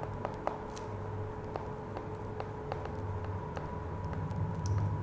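Light, irregular taps and ticks of a stylus on a tablet screen during handwriting, over a steady low background hum.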